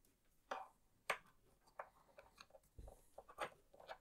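Faint, scattered clicks and taps of hard plastic being handled: the two halves of a plastic HDMI cable bracket knocking together and against the HDMI cable, about a dozen small knocks.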